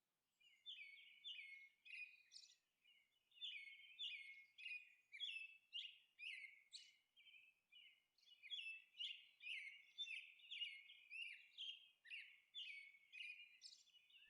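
Faint birdsong: short chirping notes repeated about two a second, in two long runs with a pause of about a second near the middle.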